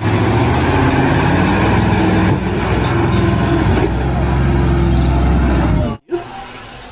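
Heavy water tanker truck's engine running hard as the truck struggles through deep mud, a steady loud low drone with road noise. It cuts off abruptly about six seconds in.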